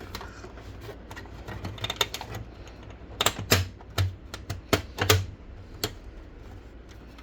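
Irregular sharp clicks and knocks of a screwdriver and hands prying at the plastic side cover of a Canon imageCLASS LBP122dw laser printer to release its latches. The clicks come in a quick cluster in the middle, the loudest a little after the midpoint.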